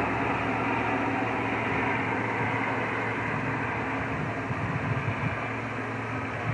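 Steady outdoor background noise: an even rumble and hiss with a faint low hum and no distinct events.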